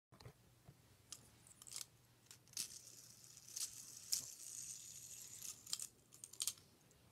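Close handling noise: hands rustling and fiddling with something small right by the microphone, in irregular scratchy bursts with a longer crinkly stretch in the middle.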